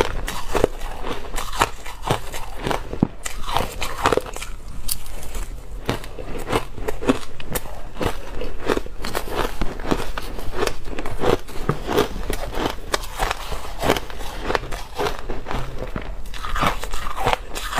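Crushed ice chewed close to a lapel microphone: a steady run of crisp crunching and crackling bites, several a second.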